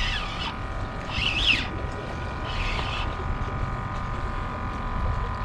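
A bird calling, three short rising-and-falling chirps about a second and a half apart, over a steady faint hum and low water and wind noise.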